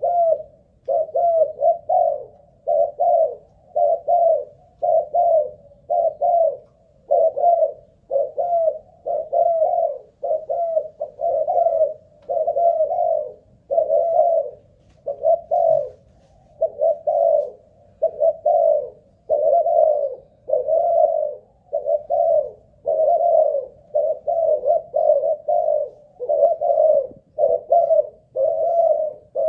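Spotted dove (Malaysian-strain cu gáy) cooing over and over, one coo phrase about every second with short pauses between them: a long, sustained run of cooing of the kind keepers test for stamina.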